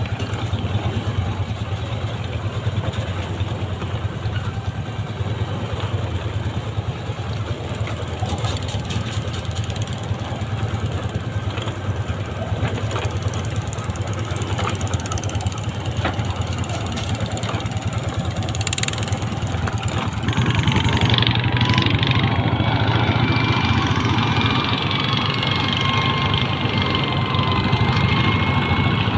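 A tractor engine running steadily at idle. About 20 seconds in it gets louder, and a thin, high, wavering whine joins it.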